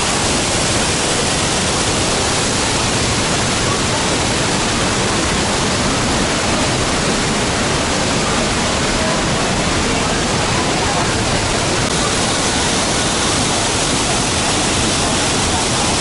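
Düden Waterfall plunging into the pool below: a loud, steady rush of falling water.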